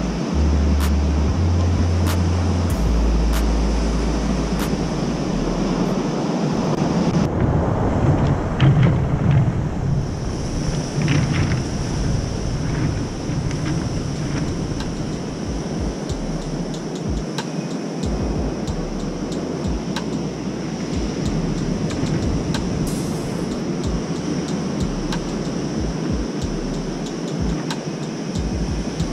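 Ocean surf breaking and washing over a cobblestone beach, with wind buffeting the microphone.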